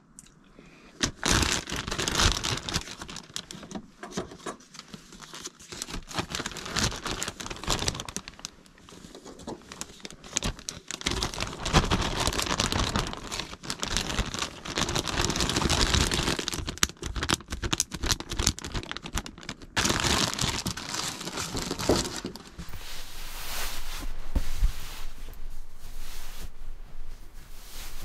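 Crinkling and crumpling of an empty foil freeze-dried meal pouch and a plastic zip-top bag being handled and folded, a dense crackle of many small clicks. Near the end it changes to a smoother rustle.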